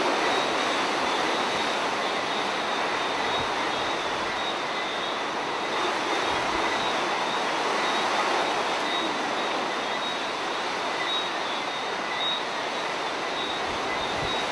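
Hurricane wind blowing outdoors: a steady rushing noise that holds at much the same level throughout, without distinct gusts standing out.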